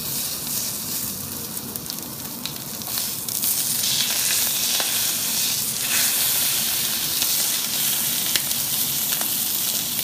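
Thick rump steak sizzling in hot oil in an iron pan, growing louder about four seconds in, with a few faint clicks.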